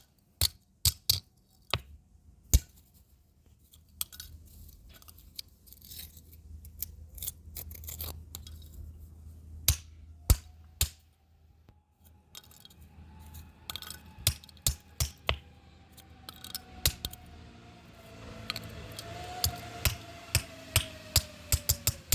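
Irregular sharp clicks and snaps, coming in clusters and thicker near the end, from hand tools cutting and prying at the plastic casing and circuit board of an RFID keypad lock as it is broken apart.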